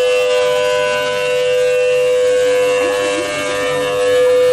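Steady, loud, high-pitched machine whine held on one pitch with overtones, unchanging throughout.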